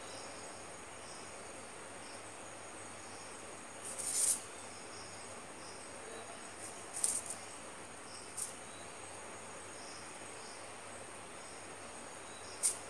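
Crickets chirping in the background: a continuous high trill with softer chirps recurring every second or so, over a faint hiss. A few short bursts of noise stand out, the loudest about four seconds in and others around seven seconds and near the end.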